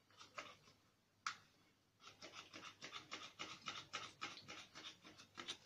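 Plastic trigger spray bottle pumped over and over, giving a quick run of faint clicks and short spits after a single sharper click about a second in. The egg-and-milk wash seems too thick for the nozzle and hardly sprays.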